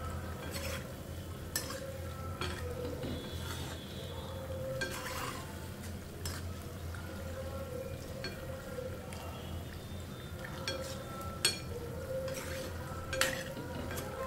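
Jaggery and wheat-flour fritters (gulgule) deep-frying in hot oil with a steady sizzle, broken by scattered sharp clinks of a metal utensil against the pan.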